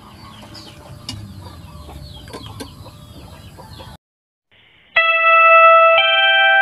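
Birds calling faintly in the background, then a cut to a moment of silence, and about five seconds in a loud electronic keyboard outro jingle begins with sustained chord tones, changing to new notes about a second later.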